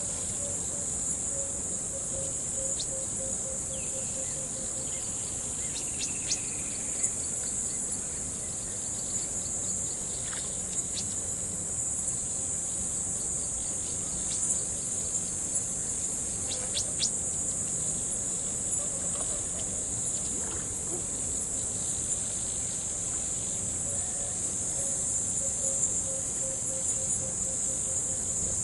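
Dense chorus of crickets, a steady high trill, over the low hiss of flowing river water. A lower pulsed call repeats near the start and again near the end, with a few short chirps in between.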